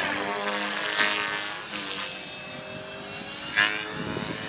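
450-size RC helicopter in flight: its motor and rotor give a steady whine that drifts slightly in pitch, with brief louder rushes about a second in and near the end.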